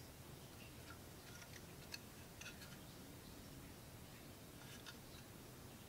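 Near silence with a few faint, light clicks and taps as a 1/24 scale hard plastic model car body is handled and turned in the fingers, the sharpest about two seconds in.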